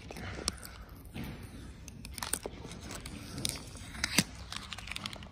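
Thin plastic film crackling and crinkling as fingers pick and peel it off a car's trim, with scattered sharp clicks, the loudest about four seconds in.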